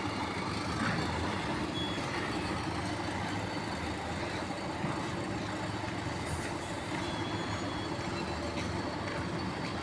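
A heavy vehicle or construction machine's engine running steadily with a constant low drone.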